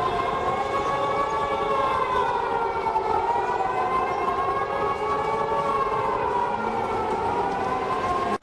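Civil-defence-style alert siren wailing, several tones sounding together and slowly rising and falling in pitch over a hiss of noise, as part of an emergency alert alarm.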